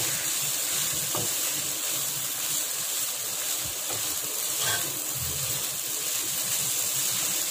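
Noodles with paneer and vegetables sizzling in a hot kadai as they are tossed with a perforated metal spatula: a steady frying hiss with soft stirring sounds.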